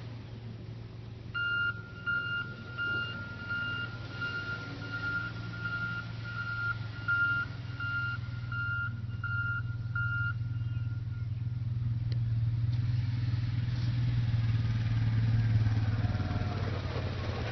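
Back-up alarm of a John Deere 772GP motor grader beeping in a steady rhythm, about three beeps every two seconds, as the machine reverses, over the steady running of its diesel engine. The beeping stops about ten seconds in, and the engine grows louder toward the end.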